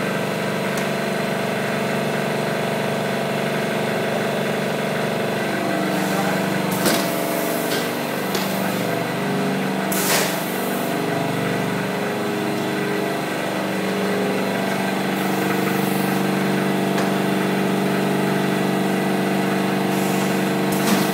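Automatic screen printing press running: a steady machine hum, with several short hisses of compressed air from its pneumatic valves as it cycles and indexes.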